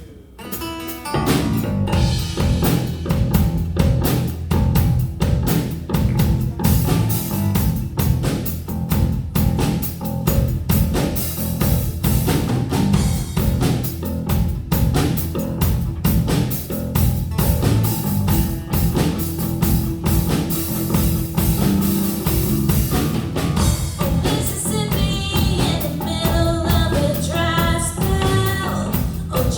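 Rock music with drum kit and guitar, starting about a second in: the instrumental opening of a song, with a singing voice joining near the end.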